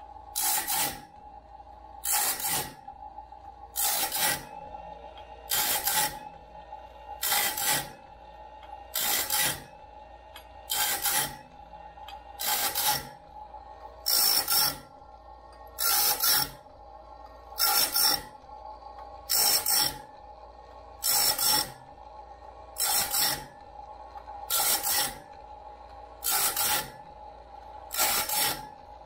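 Wood-Mizer BMS25 bandsaw blade sharpener grinding a sawmill band blade tooth by tooth: a steady motor hum, with a short grinding burst about every second and three-quarters as the wheel comes down on each tooth in turn.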